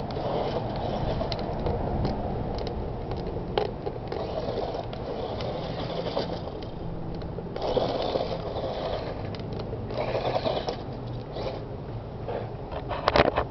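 Small electric RC monster truck (Kyosho Mini-Z Monster Mad Force), geared for speed, whirring in surges as it drives over loose dirt and gravel, with its tyres scraping and crunching. A few sharp clicks come near the end.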